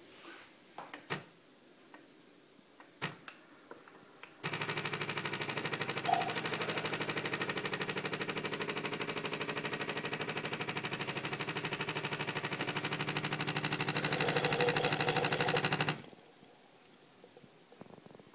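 Bosch Tassimo pod brewer's pump buzzing steadily as it pushes hot water through the T Disc. It starts about four seconds in after a few light clicks, turns hissier and sputtering near the end, and cuts off suddenly.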